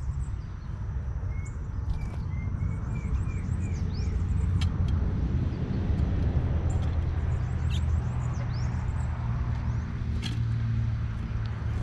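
Low rumble of a motor vehicle, louder through the middle, over faint chirps and quick call notes of small birds, including a run of short repeated notes about a second in.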